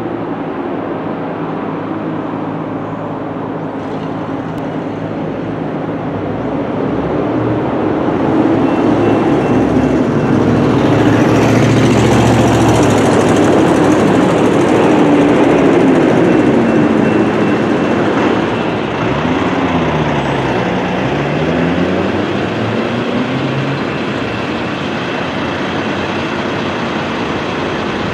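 Road vehicle engines at an activated railroad crossing. A pickup truck passes and is loudest about midway. A faint electronic crossing bell dings steadily through the middle.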